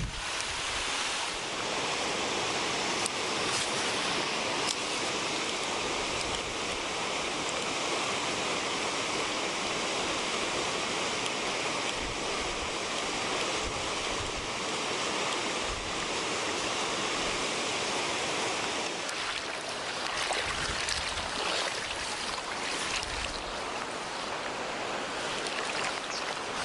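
Mountain stream water rushing, a steady hiss.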